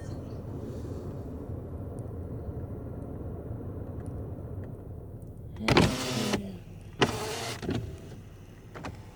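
Steady low hum of a car, heard from inside the cabin, then two loud, brief sounds about six and seven seconds in.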